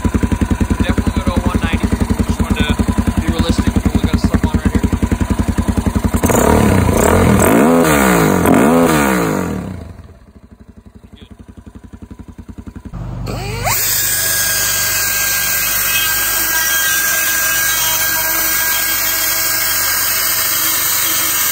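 Suzuki DR-Z400's single-cylinder four-stroke engine, fitted with a Keihin FCR carburetor, idling with an even pulse, then revved up and down several times. About ten seconds in the engine drops away. A few seconds later a handheld die grinder starts and runs steadily, cutting open the plastic airbox.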